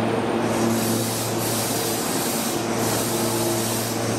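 Meitetsu 2000 series electric train's steady hum, with several steady tones from its onboard equipment. A high hiss comes in about half a second in, breaks briefly twice and fades near the end.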